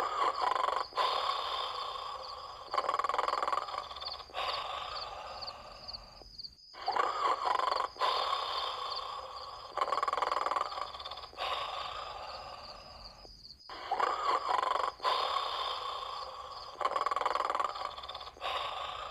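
Cartoon big dog's snoring sound effect: a long, noisy snore broken into several pulses. It repeats in the same cycle about every seven seconds, starting loud and fading each time.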